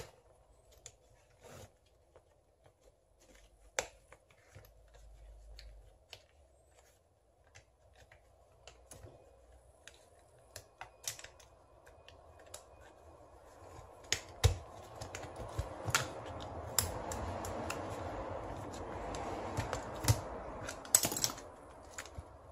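Scattered plastic clicks and knocks as the Keyang DDH-1801L 18V cordless hammer drill's split housing and internal parts are handled and pried apart by gloved hands. A rustling, scraping noise builds over the second half, with sharper knocks on top, as the motor and gearbox assembly is worked out of the housing.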